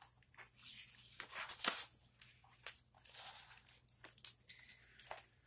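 A picture book's paper page being turned by hand: several short rustles and crinkles with a few light clicks.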